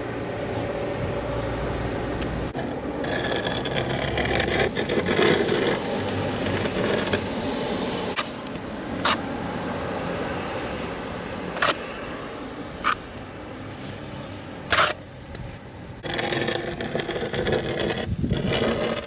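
Scraping of a plasterer's trowel or float working wet sand-and-cement render on a wall, with a few sharp clicks in the middle part.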